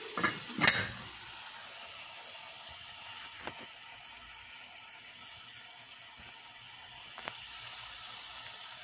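A glass pot lid set down on a metal pot with two clinks in the first second, the second the louder. Then a steady sizzling hiss from chicken simmering in soy sauce under the lid.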